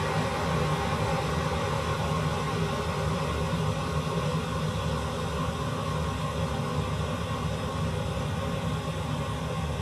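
Steady rushing roar of kitchen stove noise, with a faint hum under it, while a lit gas burner heats a wok of soup.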